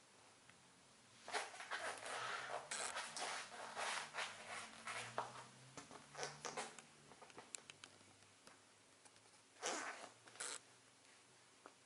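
Bursts of rustling and rasping rubbing as the legs move: leggings fabric and Buffalo platform boots brushing against each other, with a few light clicks. A long stretch of rustle starts about a second in and fades by the middle, then one short burst comes near the end.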